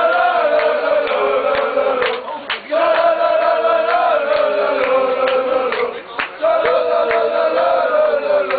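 Football supporters chanting together in unison: a sung phrase repeated three times with short breaks between, and sharp beats through it.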